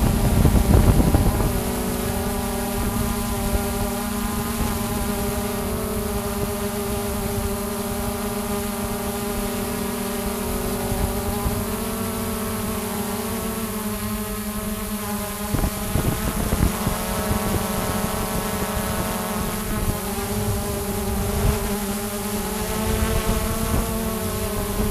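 Xiaomi quadcopter drone's motors and propellers humming steadily, picked up by the drone's own microphone, with several wavering pitches held together. A louder rush of wind-like noise fills the first second and a half.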